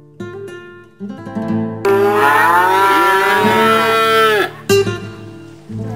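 Acoustic guitar music playing, with a calf bawling loudly over it in one long, wavering call of about two and a half seconds starting around two seconds in.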